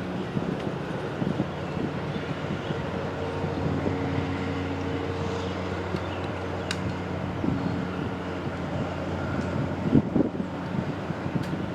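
Steady low engine hum, as of an idling motor vehicle, holding one pitch throughout, with a sharp click partway through and a few knocks near the end.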